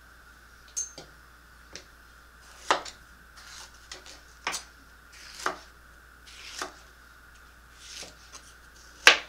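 Kitchen knife chopping a jalapeño on a plastic cutting board: about seven single, unevenly spaced cuts, the loudest just before the end.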